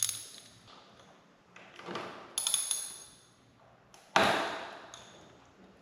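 A socket wrench clinks against the oil drain bolt of a Kawasaki ZX-6R, with a short metallic ringing about two and a half seconds in. About four seconds in there is one sharp, loud knock as the tight drain bolt breaks loose under the wrench.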